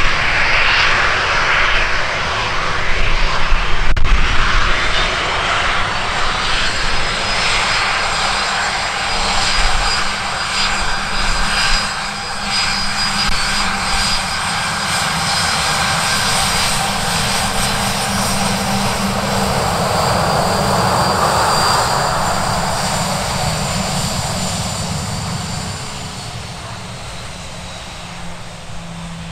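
Airliner engines running loudly, peaking about four seconds in, holding steady, then fading over the last few seconds.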